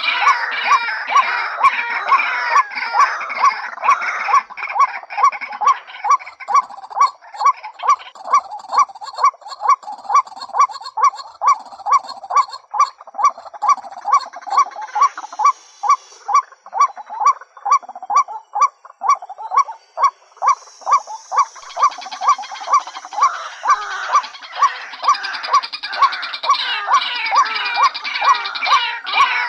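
White-breasted waterhen, female, calling: a steady repeated series of harsh notes at about two to three a second. A dense chorus of overlapping calls thins out after about five seconds and builds up again a little after twenty seconds.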